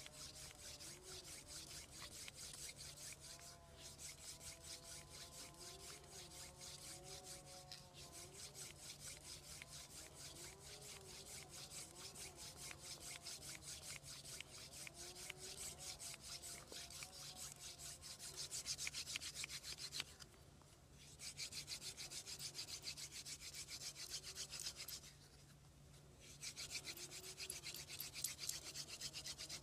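Hand drill for friction fire: a wooden spindle spun back and forth between the palms, grinding in a wooden hearth board with a fast, even rasping rub. The rubbing grows louder in the second half and breaks off briefly twice.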